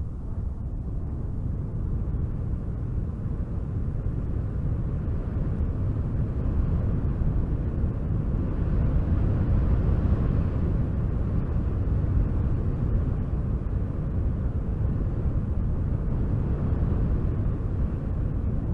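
Wind blowing, a low rumbling rush that swells into a stronger gust about halfway through and then eases back.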